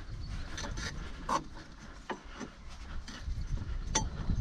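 A screwdriver prying the slackened rubber V-belt off the power-steering pump pulley of a Volvo 240: rubbing and scraping of rubber on metal, with a few light clicks.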